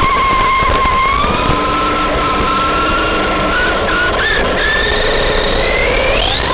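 ARRMA Big Rock V3 RC truck's electric motor and drivetrain whining as it drives. The pitch holds fairly steady, edging up, then climbs sharply near the end as the truck speeds up.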